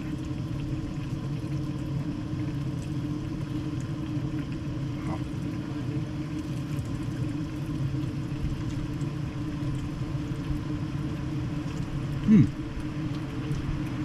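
Strong coastal wind, a steady low rumble, with one brief louder sound about twelve seconds in.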